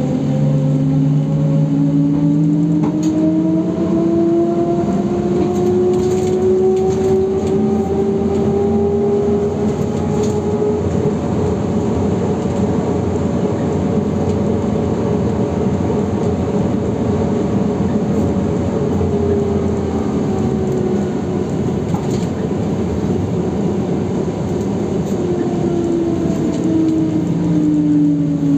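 ZiU-682B trolleybus heard from inside the cabin: the electric traction drive's whine rises in pitch as it gathers speed over the first ten seconds or so, holds steady, then falls away as it slows toward the end, over steady road and tyre noise with a few brief clicks.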